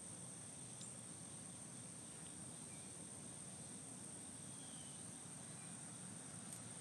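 Faint, steady insect trilling, a thin unbroken high tone, over a low background rumble.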